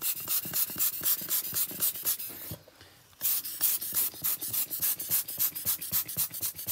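A hand rubbing quickly back and forth over a small card of ceramic paper wet with metallic alcohol ink, making a rapid scratchy swishing of several strokes a second. There is a brief pause about two and a half seconds in.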